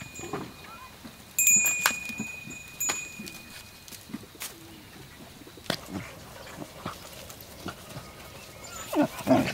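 Farmyard sounds: a high, steady tone over the first few seconds with a sharp, loud start of clicks about a second and a half in, and scattered small knocks. Near the end come short, loud growls and yips from two puppies play-fighting.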